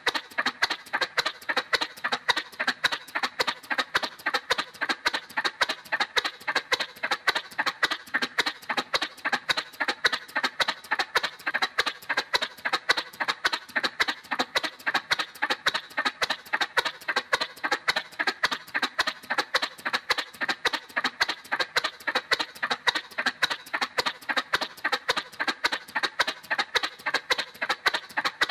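Cartoon motorcycle sound effect: an even, rapid putt-putt of sharp clicks, about four to five a second, holding a constant pace.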